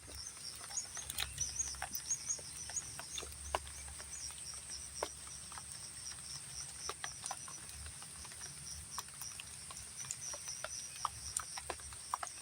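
Light rain falling: scattered drops tapping irregularly and sharply, over a steady high-pitched chirring of insects.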